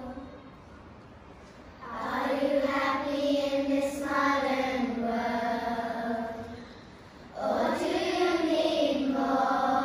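Children's school choir singing together, in sung phrases with a short break at the start and another about seven seconds in.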